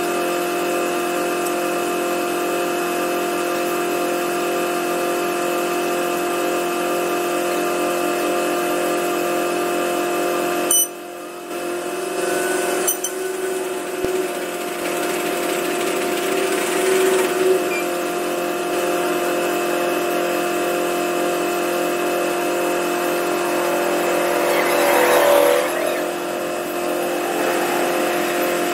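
Steady, even drone of idling diesel train engines, with a faint regular pulsing in the hum. The sound briefly cuts out about a third of the way in, and a short louder swell comes near the end.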